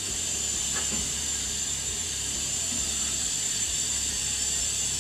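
Steady hiss of water rushing through a hot-water heating boiler's piping as one heating zone is purged, with a low hum underneath.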